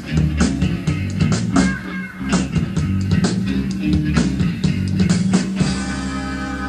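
Live rock band playing, with drums hitting steadily over bass and electric guitar. About five and a half seconds in, the drum hits stop and a held chord rings on.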